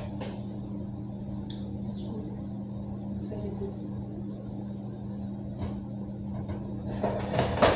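Steady low electrical hum from a kitchen appliance, with a few light knocks and a louder clatter of kitchenware near the end as dishes and utensils are handled.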